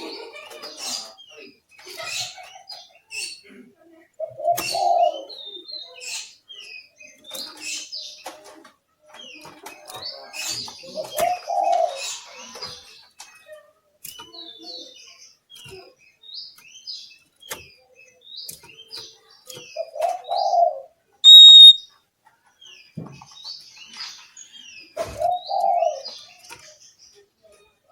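Oriental magpie-robin (kacer) singing a varied song of quick chirps and whistled phrases. A lower cooing note comes four times, and one very loud, pure whistle stands out about three-quarters of the way through.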